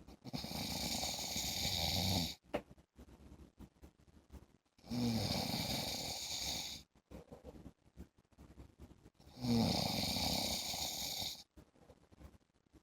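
A man snoring in a regular rhythm: three loud snores of about two seconds each, roughly four and a half seconds apart, with quiet gaps between.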